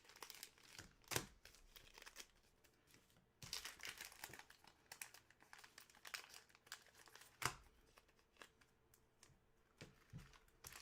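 Faint crinkling, rustling and tearing of plastic wrapping, in scattered short crackles with one louder crackle about two-thirds of the way through: hockey card packaging being unwrapped and opened.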